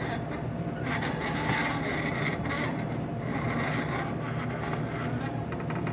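Hot dog roller grill motor humming steadily, with two stretches of rasping, scraping noise as the jammed rollers grind and bind. The motor runs but the rollers mostly stay stuck.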